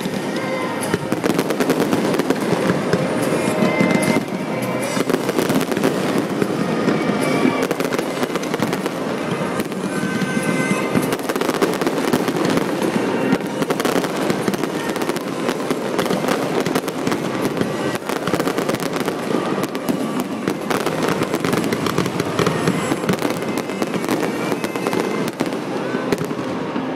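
Aerial fireworks display: a rapid, unbroken barrage of shell bursts, bangs and crackling.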